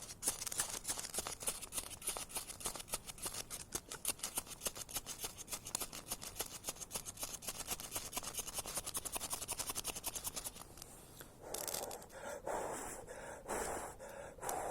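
Rapid rhythmic scraping, several strokes a second, kept up for about ten seconds. Then a few slower, louder rustling strokes, while a survival fire is being worked on after the tinder smoked without catching.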